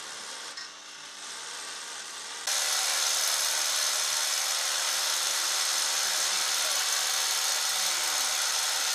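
A power tool working material, a loud, steady, harsh hiss that starts suddenly about two and a half seconds in and runs on without a break.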